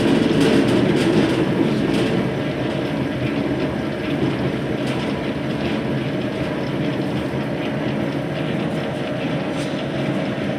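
Lathe running, its motor and headstock gears giving a steady mechanical hum, a little quieter from about two seconds in.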